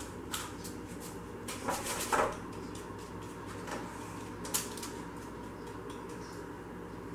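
A few soft knocks and scrapes from hands pressing pretzel crumbs into a metal springform pan, over a steady low hum.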